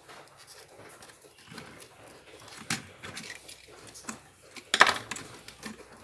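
Scattered clicks and rustles of wires and small tools being handled at a switch terminal, with a short, loud, sharp burst of sound about five seconds in.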